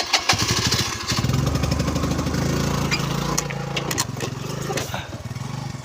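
Honda Navi's small single-cylinder four-stroke engine starting and running at a steady fast idle.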